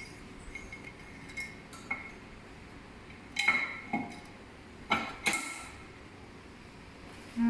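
Metal parts of a dental unit's lamp arm and pole clinking and knocking together as they are handled and fitted. There are a few light clinks, then a cluster of louder knocks from about three and a half to five and a half seconds in, several with a short ring.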